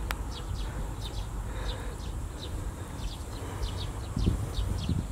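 Small birds chirping: many short, high, falling chirps, a few a second, over a steady low rumble. There is one sharp click right at the start.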